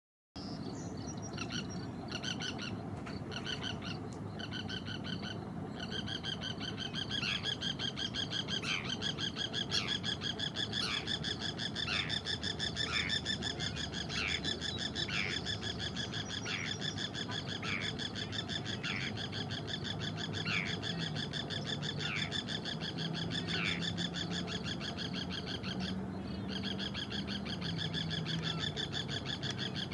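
A pair of Forster's terns calling: a continuous rapid chatter, with a short downward-sliding note repeated about once a second through the middle.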